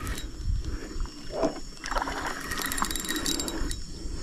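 Water splashing irregularly with scattered sharp clicks as a small river fish is brought in on a fishing line.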